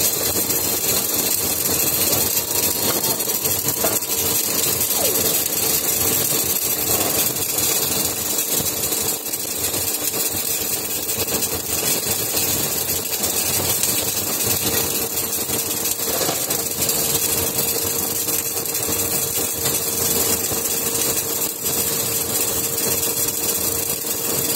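CO2 MIG welding arc crackling steadily on a continuous round seam, unbroken throughout, with a faint steady hum underneath.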